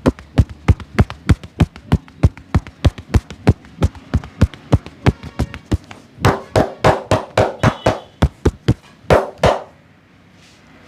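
A barber's hands tapping and slapping in a fast, even rhythm during a massage, about four strikes a second. A little past halfway the strikes change to a fuller sound, then stop about a second before the end.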